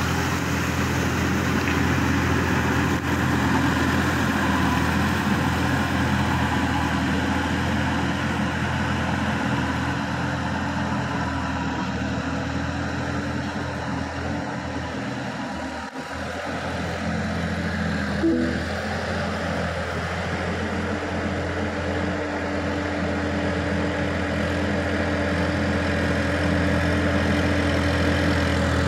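Sonalika DI-50 RX tractor's diesel engine running steadily under load as it drags a rotary tiller through deep paddy mud. A short knock comes about two-thirds of the way through.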